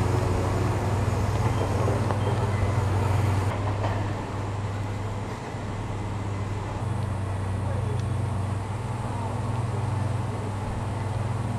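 Diesel engines of heavy construction machinery, a hydraulic excavator and crane, running steadily with a low drone.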